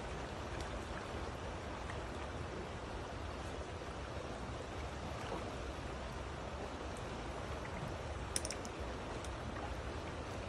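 Steady rush of a flowing creek running over rocks, with one brief sharp click about eight seconds in.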